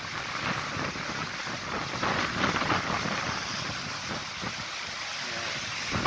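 Small sea waves washing onto a rocky beach, with wind rumbling on the microphone.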